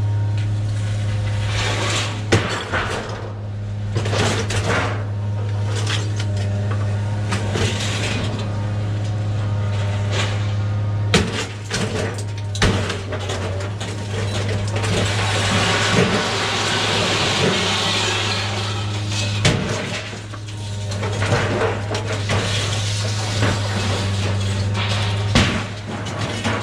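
Scrap metal clanking and knocking, with scattered sharp impacts, over a steady low hum that runs throughout.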